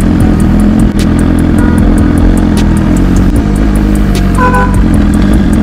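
Motorcycle engine running loud and steady, a deep rumble that holds without a clear rev.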